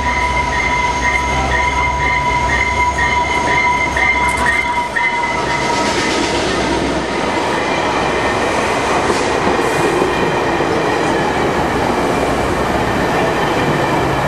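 A VIA Rail F40PH-2 diesel locomotive rolls slowly past with its engine rumbling and a steady high whine that fades about five seconds in. The stainless-steel passenger cars then roll by with wheel and rail noise and a few sharp clicks.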